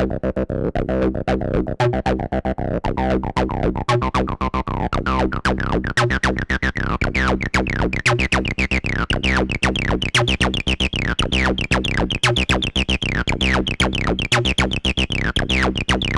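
Behringer TD-3 acid bass synthesizer playing a fast sequenced line of short notes. The filter opens steadily so the tone grows brighter, and each note gives a quick downward sweep.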